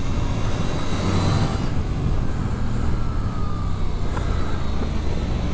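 Suzuki GSX-8S's 776cc parallel-twin engine running steadily under way, over a continuous rush of wind.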